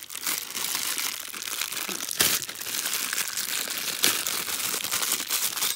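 Thin clear plastic bag crinkling and rustling as hands work it open to unwrap a small part, with a couple of sharper crackles, about two seconds in and again about four seconds in.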